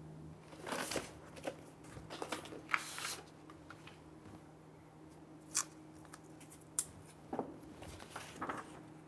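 Paper rustling as a stack of sheets is flipped through, then a few short, sharp tearing and crackling sounds as a roll of masking tape is pulled and torn.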